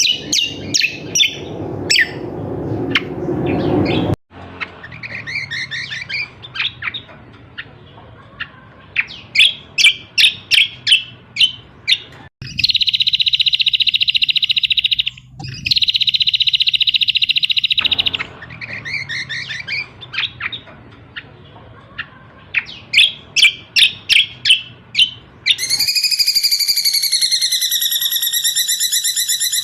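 Edited bird-lure recording of kecial kombok songbird calls: rapid series of sharp, high chirps, broken by two long buzzy trills around the middle. A long pulsing trill with a wavering pitch starts near the end. The segments change abruptly where recordings are spliced together.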